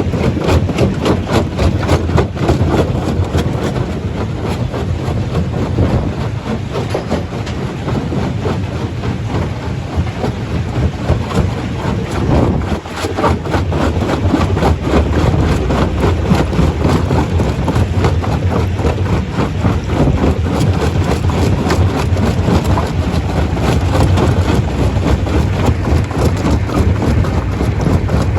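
Stone crusher running, with a dense, continuous clatter of rock being broken over a steady low machine drone.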